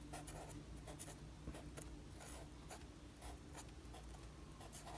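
Faint scratching of a felt-tip marker writing on planner paper: many short, irregular strokes as a word is lettered, over a low steady hum.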